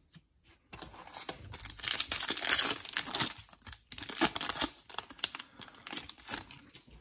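Foil wrapper of a trading-card pack being torn open and crinkled, then rustling as the cards are slid out. It starts just under a second in and is loudest early on the tear, then thins to lighter intermittent crinkles.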